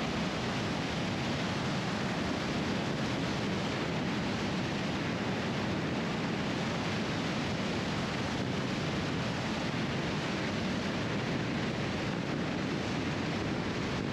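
Steady drone of a light high-wing aircraft's engine and propeller mixed with wind rush, on a low final approach to a dirt strip.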